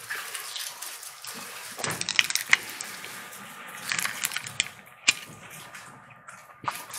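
Scattered light clicks and soft rustles as small communion cups are handled, drunk from and set back into their trays, with a faint room hiss underneath.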